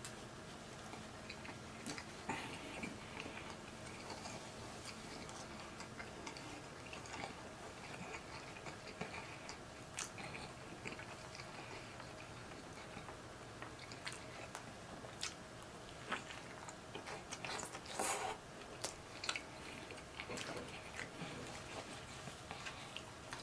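A person biting into and chewing a sub sandwich: soft mouth and chewing sounds with scattered small clicks, and a louder cluster of sharp noises about eighteen seconds in.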